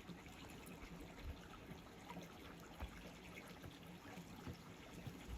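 Faint trickle of a small creek bubbling over rocks.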